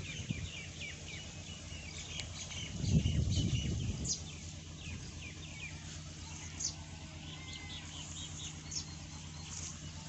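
Small birds chirping, many short, quick chirps overlapping throughout. A loud low rumble comes about three seconds in and lasts about a second, and a steady low hum runs underneath after it.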